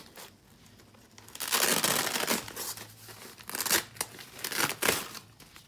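A fabric tote's removable padded dividers handled and pulled loose: a rustling, tearing rasp of cloth lasting about a second, then two shorter rasps.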